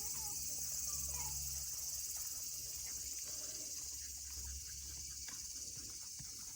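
Insects, crickets or similar, chirring steadily as a high, even drone, with a few short bird chirps near the start and a low hum underneath that stops partway through.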